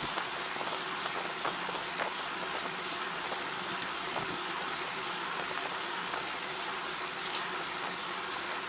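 Steady road and wind noise of a vehicle on the move, with a few faint ticks.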